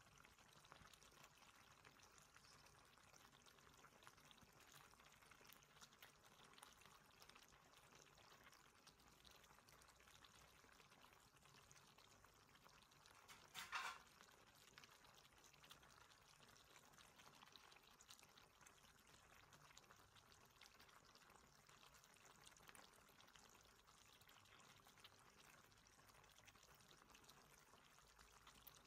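Teriyaki sauce simmering with pork and green beans in a wok: a faint, steady sizzle with fine crackles, and one short, louder sputter about halfway through.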